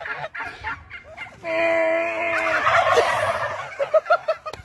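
A large flock of domestic turkeys gobbling together in one loud chorus that starts about a second and a half in and lasts about two seconds, with a few short calls before and after.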